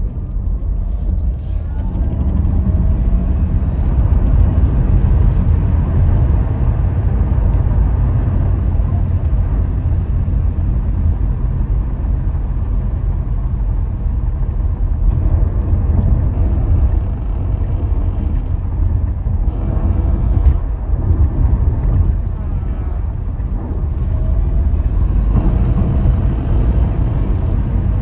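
Cabin noise inside a Tesla Model S Long Range accelerating from about 55 to 150 km/h on its electric motors: a steady low rumble of tyres and wind, getting louder about two seconds in.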